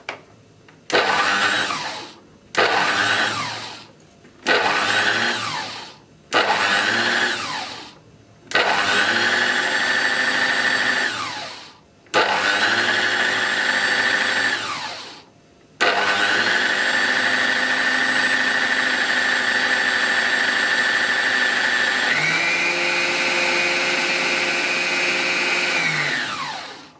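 Electric food processor blending flour, sugar and butter cubes into a crumb mix. It runs in six short pulses, each winding down with a falling whine, then one long run of about ten seconds whose pitch steps up near the end.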